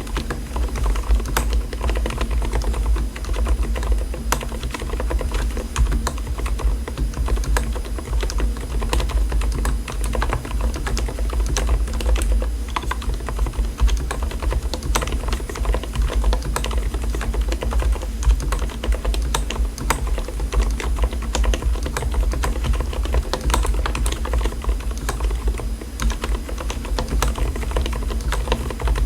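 Continuous typing on an Mstone mechanical keyboard with silent switches, a dense, irregular stream of key clicks over a steady low hum.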